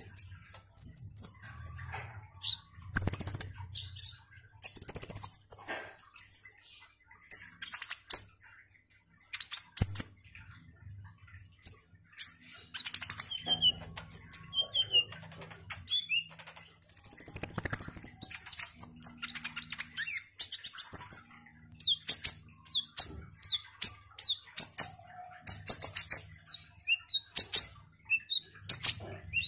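Caged male kolibri ninja sunbird singing: rapid high-pitched chirps and twittering phrases, with a high held trill about 17 seconds in and a quick run of sharp chirps near the end.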